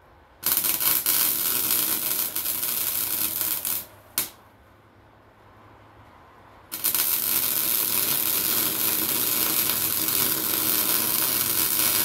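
Electric welding arc crackling as a crack in a Polaris Sportsman 800's exhaust is welded: a run of about three seconds, a brief tap about four seconds in, then a second, longer run starting about seven seconds in.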